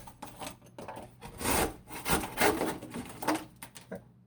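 Sound-deadening material being scraped and peeled off a truck's rusty floor pan: irregular rough scraping strokes of uneven strength, the loudest in the middle.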